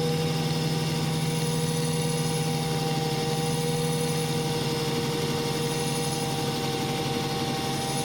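Belt grinder running steadily at high speed with a leather honing belt: an even motor hum with a constant whine.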